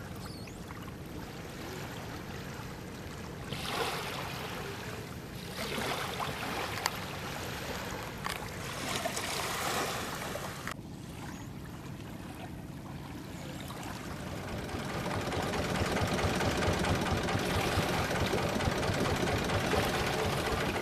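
Boat engine running steadily, with rushing and splashing water; the engine gets louder about fifteen seconds in.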